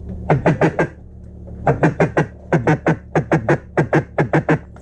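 Duck call blown in quick runs of hen-mallard quacks, four or five short notes at a time, each note dropping in pitch, over a steady low hum.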